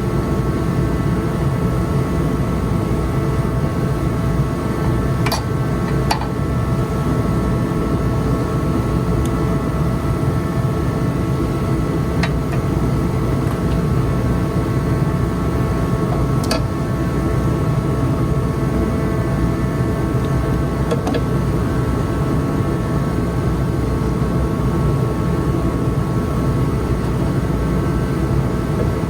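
Steady mechanical hum of a running motor or fan, with a low rumble and several steady tones held at one level, and a few faint light clicks scattered through it.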